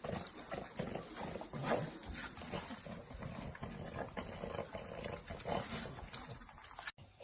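French bulldog puppy growling in short, irregular bursts, cut off abruptly just before the end.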